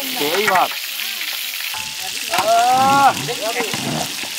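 Steady sizzle of swordfish pieces frying in hot oil in a wide pan while being stirred. Two brief pitched calls sound over it, a short one about half a second in and a longer, louder one around three seconds in.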